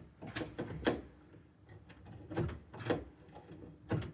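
Several short mechanical clicks and rattles from a keypad door lock's handle and latch mechanism being worked by hand. The two loudest come about a second in and near the end.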